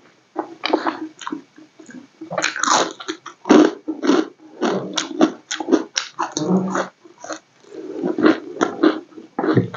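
Close-miked chewing and lip-smacking of a person eating rice and fried battered vegetables by hand: irregular runs of wet mouth clicks and smacks, pausing briefly about two seconds in and again near seven seconds.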